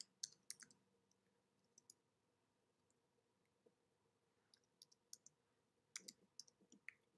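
Faint computer keyboard keystrokes, a few scattered clicks in small groups with quiet gaps between, as text is typed.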